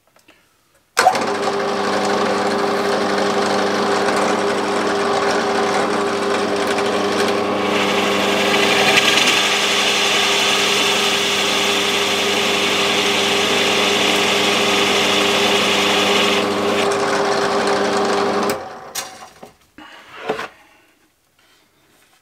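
Parkside bench drill press switched on about a second in, its motor running steadily while a Forstner bit bores a hinge-cup hole in a cabinet front, with a louder cutting noise in the middle as the bit cuts into the board. It is switched off near the end and runs down, followed by a few light knocks.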